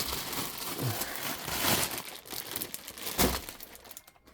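CB radio switched on, its speaker giving out a steady rush of static hiss, which dies away in the last second. The hiss shows the set is working.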